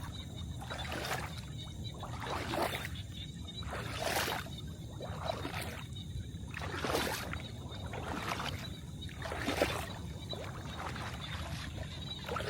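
A paddle dipping and pulling through water in a small boat, a splashing stroke about every second and a half, over a steady low rumble.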